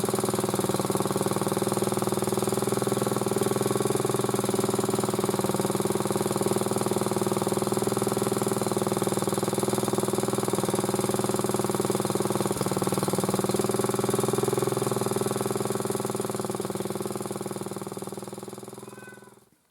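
MTD motor-cultivator's small four-stroke engine running steadily, then dying away near the end. The owner suspects a valve tapping from incorrect valve clearance.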